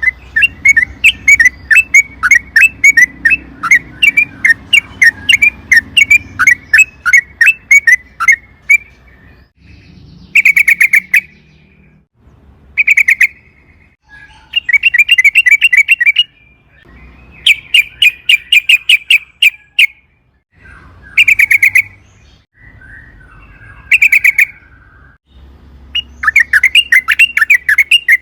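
Yellow-vented bulbul (trucukan) singing in rapid chattering phrases. A long run of about four notes a second comes first, then the song breaks into short, very fast bursts with pauses between them.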